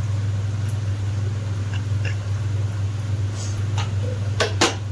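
A spatula stirring peas and tomato chutney in a pan: a few light taps and scrapes against the pan, the two loudest close together near the end, over a steady low hum.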